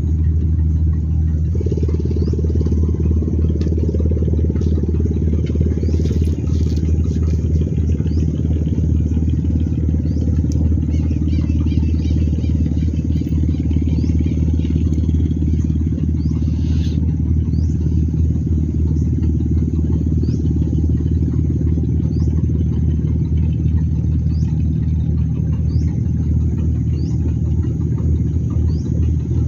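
A motor engine running steadily with a constant low hum. Faint short high chirps repeat every second or two in the second half.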